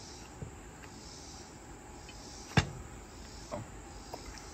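Bottles being handled on a wooden cutting board: one sharp knock about two and a half seconds in, as a bottle is set down, and a few lighter taps. Behind them runs a faint, steady, high chirring of insects.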